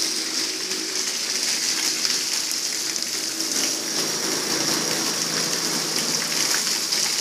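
Water pouring from an overhead hopper onto a man and the concrete floor below: a steady hissing splash, with a faint machine hum underneath.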